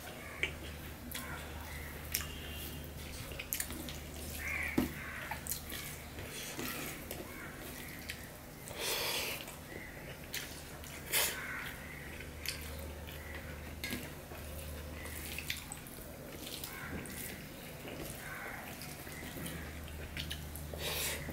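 Close-up eating sounds of rice and curry mixed by hand on a steel plate and chewed: many short clicks and smacks, a few of them louder, over a low steady hum.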